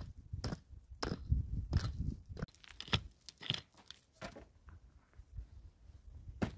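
Dry, stony soil and gravel crunching as it is dug and scraped with a small hatchet beside a wooden pole, in a run of irregular sharp strikes, close together at first and sparser near the end.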